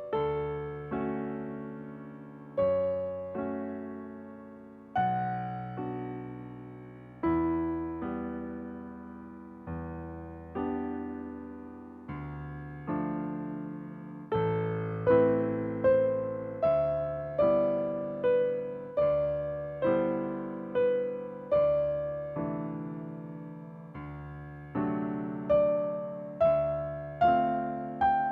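Solo piano playing a slow, gentle piece, each note or chord struck and left to fade; the notes come more quickly from about halfway through.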